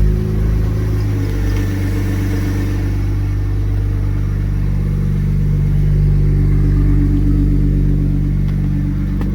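BMW 335is's twin-turbo N54 straight-six idling steadily through a straight-pipe exhaust, with a very slight squeak from the belt drive. The owner suspects the belt tensioner; the squeak is worst on a cold start and fades as the engine warms.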